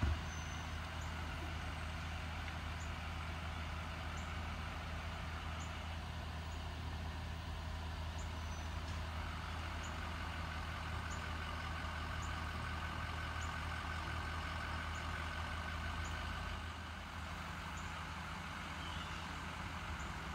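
Steady low rumble of emergency vehicles' engines running, with no siren sounding; the rumble eases about three-quarters of the way in. Faint, regular ticks repeat about once a second above it.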